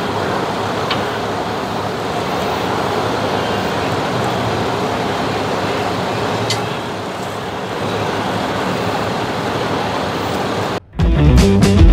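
A steady rushing noise with a few faint clicks. About a second before the end it cuts out abruptly, and loud rock music with guitar starts.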